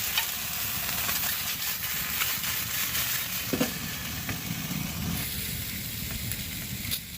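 Maple sausage sizzling in a bare titanium frying pan on a titanium woodstove: a steady frying hiss with small scattered pops.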